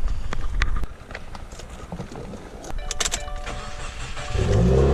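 A few clicks and a short electronic chime, then, near the end, a 2018 Subaru WRX's engine starts and settles into a steady fast idle.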